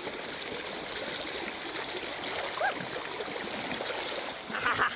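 Stream water rushing steadily, with a brief louder burst near the end.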